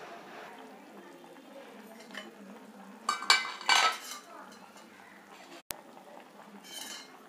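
A stainless steel lid clanking twice against a clay cooking pot as it is handled, about three seconds in, over a low steady hum.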